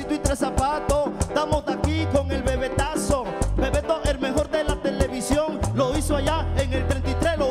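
Live band playing upbeat Latin dance music, with a steady, fast hand-drum and percussion rhythm, bass notes and guitar under a male lead vocal.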